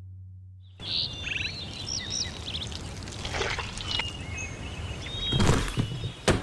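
Birds chirping and calling over open-air ambience, with dull knocks as old sun-dried earth blocks from a demolished house are set down and stacked. The heaviest knock comes about five and a half seconds in, and a sharp knock comes near the end.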